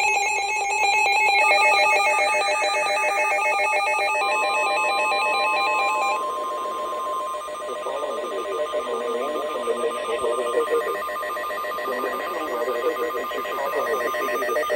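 Emergency Alert System alert tones. Rapid, warbling digital data chirps come first, then a long steady tone of about 1 kHz starting about four seconds in and stopping shortly before the end, with wavering lower sounds under it.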